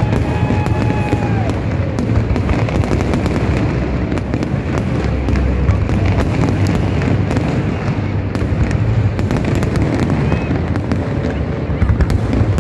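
Fireworks display in full barrage: many aerial shells bursting close together, giving a continuous deep booming rumble with dense sharp crackling on top.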